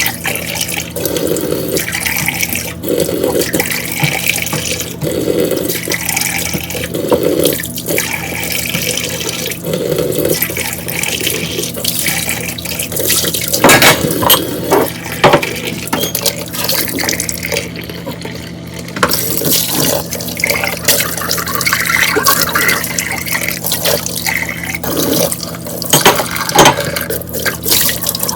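Kitchen tap running into a sink while dishes are washed, with sharp clinks of dishware now and then.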